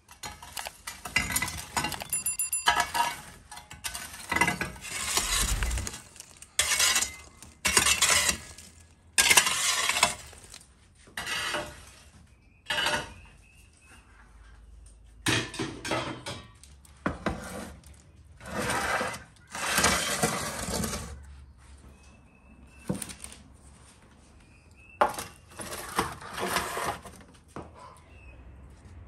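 Iron fire shovel scraping and clattering over the brick hearth of a wood-fired oven, raking the burning coals and embers aside in a long series of short strokes with brief pauses between them.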